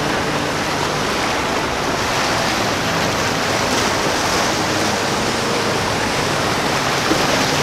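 Steady rushing of churning, breaking water in a fast inlet current stirred by boat wakes.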